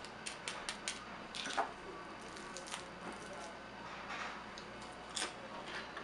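Crispy tostones (twice-fried green plantains) crunching: sharp crackly crunches, a quick run of four in the first second, then a few scattered ones, the loudest about a second and a half in.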